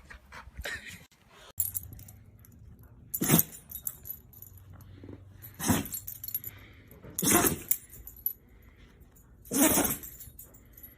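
A dog sneezing four times, each a short sharp burst, a couple of seconds apart.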